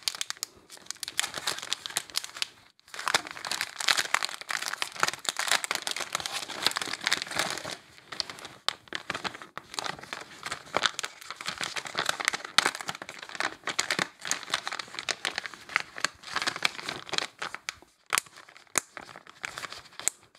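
Thin plastic zip-top bags crinkling as they are handled, turned over and spread out by hand, with a few short pauses.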